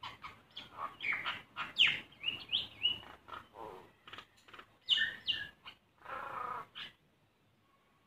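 Common myna calling at close range: a rapid jumble of short clicks, chirps and whistles, with a few rising whistled notes about two seconds in. It ends with a harsh, rasping call about six seconds in.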